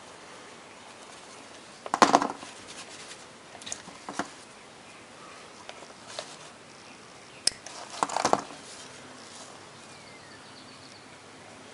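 Hands handling small plastic and metal trimmer parts and tools: two short bursts of clicking and rattling about six seconds apart, with a few single ticks between.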